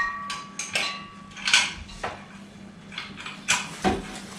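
Metal clinks and knocks from a black metal ring ceiling lamp and its ceiling fitting being worked loose by hand. It opens with a ringing clink that dies away over about a second, followed by scattered irregular clinks and knocks.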